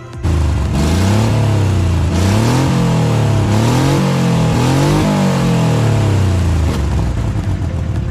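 Suzuki Multicab's 12-valve three-cylinder engine running after a new electric fuel pump was fitted, revved up and down about four times, then settling to a steady idle near the end. It runs okay: the pump replacement has cured the fuel-delivery fault.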